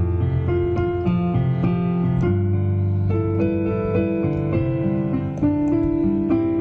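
Casio Celviano digital piano played by hand: a slow melody over held low chords.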